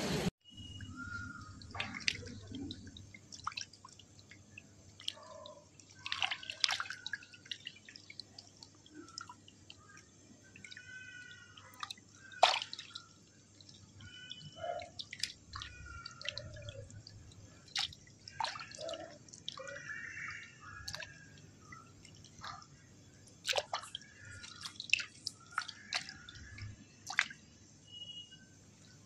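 Water dripping and splashing in irregular small bursts as a crowd of small koi flap in shallow water and are handled by hand. A few faint high chirps come and go.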